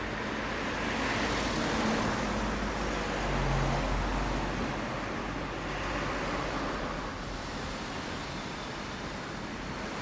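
Yamaha XJR400R's air-cooled inline-four engine idling steadily through a WR'S carbon-fibre slip-on silencer: a low exhaust rumble under a steady hiss.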